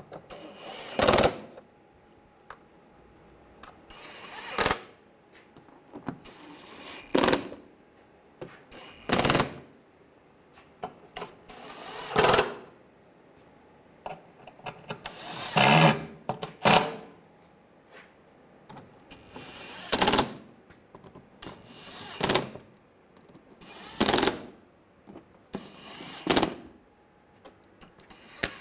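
Cordless impact driver hammering in short bursts, about a dozen of them, roughly one every two seconds, as it runs screws down tight.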